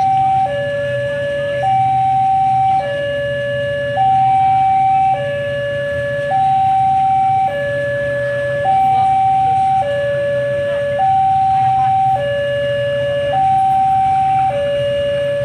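Railway level crossing warning alarm sounding a loud two-tone electronic signal, alternating high and low about every second, the warning that a train is approaching. A steady low hum runs beneath it.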